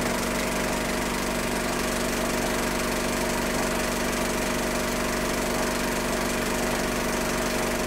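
Film projector running: a steady mechanical whirr with a fixed low hum, even throughout.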